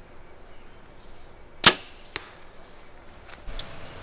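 A compound bow shot: one loud, sharp snap of the string on release. About half a second later comes a fainter knock, the arrow hitting the target.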